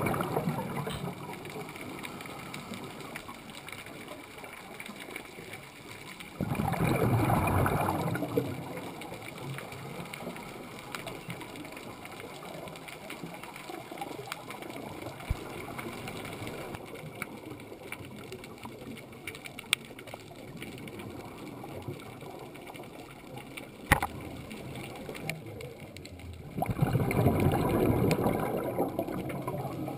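A scuba diver's regulator exhaust: a bubbling rush of exhaled breath lasting about two seconds, heard at the start, about seven seconds in and again near the end, over a steady underwater hiss with scattered sharp clicks.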